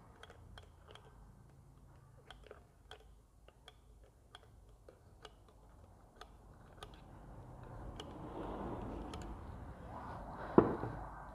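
Small metal parts clicking and tapping irregularly as a new clutch assembly is fitted by hand into a Bajaj Pulsar engine. It gets a little louder about eight seconds in, and there is one sharp knock near the end.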